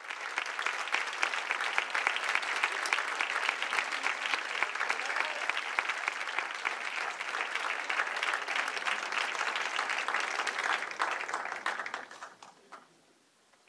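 Audience applauding: a dense, steady clapping that dies away about twelve seconds in.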